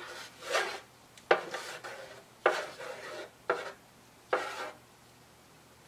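A flat spreader scraping across a wood artist panel as it spreads white acrylic paint. It makes five short strokes about a second apart, each starting with a sharp scrape.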